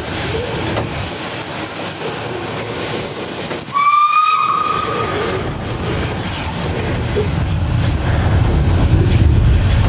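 Steam locomotive whistle: one short blast of about a second, a little under halfway in, over steady hiss and train noise. A low rumble grows louder toward the end.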